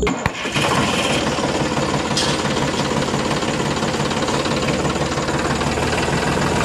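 Mini RC toy tractor running as it drives, its small motor and gears giving a steady, fast rattling buzz that starts about half a second in.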